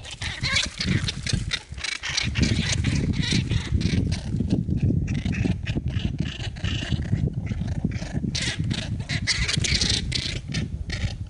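Slowed-down sound of American red squirrels fighting and scrabbling, turned deep and drawn out: a low rumble under a rapid, dense stream of clicks and scratchy scuffles.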